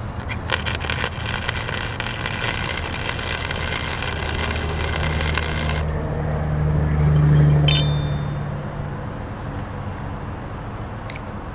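Short burst of flux-core wire welding: the arc sputters a few times as it strikes, buzzes and crackles for about five seconds, then cuts off suddenly. Road traffic runs behind it, and a passing vehicle's low engine drone swells and fades a few seconds later; the drone is the loudest sound.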